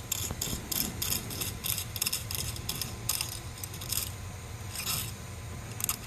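A run of short, hissy rubbing and scraping strokes, about four a second for the first four seconds, then two more spaced out. They come from hands working the filament and extruder assembly of a 3D printer.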